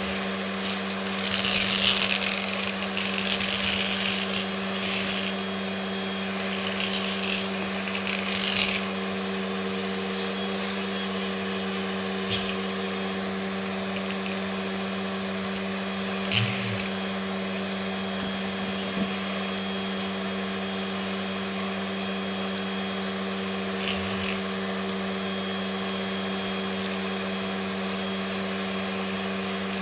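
Vacuum cleaner running with a steady motor hum, sucking up crunchy debris that crackles and rattles through it for the first nine seconds or so, then only an occasional single tick of a bit of debris.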